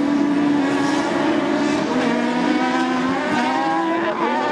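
Engines of several autocross buggies racing on a dirt track, their notes overlapping and rising and falling in pitch as the drivers rev and change gear.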